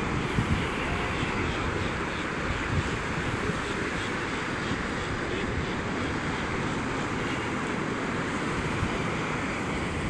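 Ocean surf washing steadily onto a sandy beach, with light wind buffeting the microphone.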